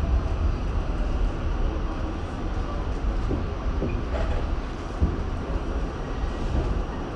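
R68 subway train running on the track: a steady low rumble with a few faint knocks in the middle.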